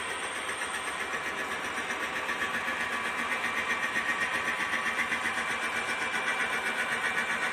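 Milling machine cutting a bevel gear blank: a steady mechanical clatter with a fast, even rhythm, growing gradually louder.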